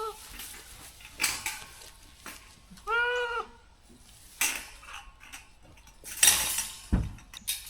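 Metal clanking and rattling from a fence lock being fastened, in several bouts, the loudest about six seconds in. A goat bleats once about three seconds in.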